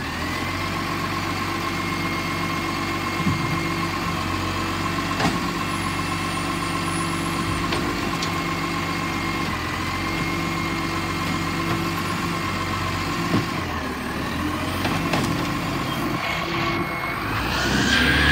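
Garbage truck's engine idling steadily, with a steady high whine over it. Near the end it grows louder and rises in pitch.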